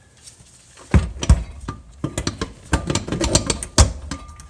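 Irregular knocks, clicks and clunks, starting about a second in, as the RX-7's five-speed manual transmission is pushed and wiggled to mate it to the engine.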